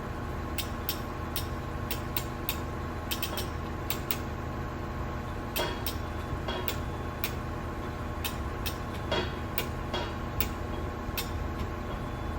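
Front-end loader engine running steadily at a low, even hum, with many sharp, irregular clicks and ticks over it.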